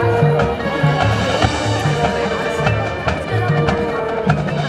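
Marching band playing live: flutes, saxophones and brass carry the melody over a steady low beat about every half second, with drum strokes.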